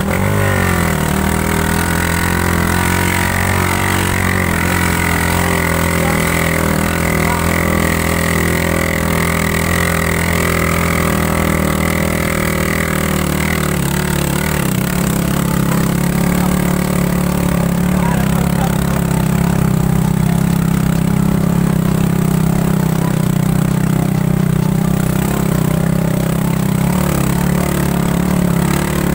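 Small motorcycle engine running under way with several riders aboard. The revs rise in the first second and then hold steady; about 14 seconds in the higher whine drops away and a lower, even engine note carries on.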